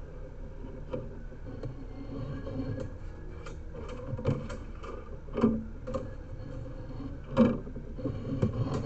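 Sewer inspection camera and its push cable being worked forward and back through a cleanout: scattered clicks and knocks over a low rumble, with two louder thumps about five and a half and seven and a half seconds in.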